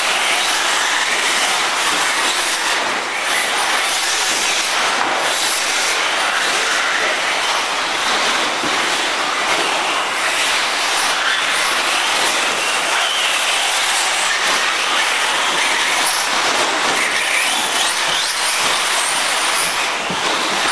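1/8-scale brushless electric RC buggies running on a dirt track: a steady whir of motors and geared drivetrains, with faint whines that rise and fall as the cars speed up and slow down.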